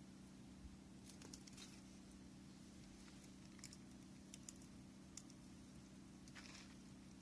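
Faint, sparse crackles and pops of a wood bonfire, a few small clicks every second or so, over a low steady hum.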